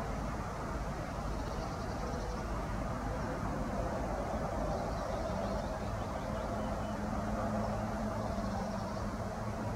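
Steady low rumble of distant vehicle traffic, with a low hum joining about five seconds in.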